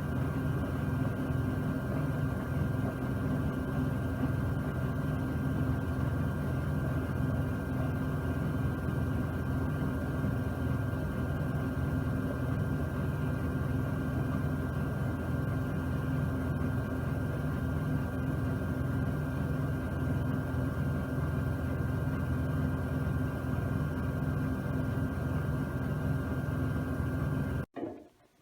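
Miele W1 front-loading washing machine running steadily at high spin speed, a motor whine over a low hum, which stops abruptly near the end.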